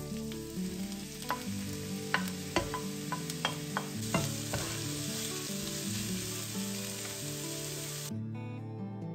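Diced onions sizzling in hot olive oil in a pan, with sharp clicks and scrapes of a wooden spatula stirring them during the first half. The sizzle cuts off about a second before the end.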